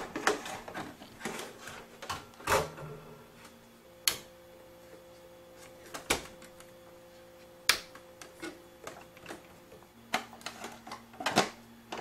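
Irregular clicks and knocks of a hard drive in a metal 3.5-to-5.25-inch adapter bracket being slid into a PC case's optical bay and clipped in with the bay's tool-less locks, with a louder knock about two and a half seconds in and a quick run of clicks near the end.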